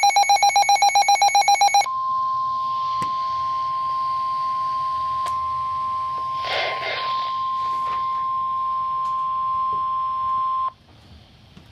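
A short pulsing digital data burst, the tail of the EAS SAME header, then the NOAA Weather Radio 1050 Hz warning alarm tone: one steady high tone held for about nine seconds that cuts off suddenly near the end, leaving faint radio static.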